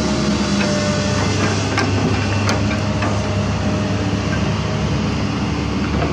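Komatsu PC200 excavator's diesel engine running steadily while its arm and loaded bucket move, with a thin hydraulic whine and a few sharp clinks.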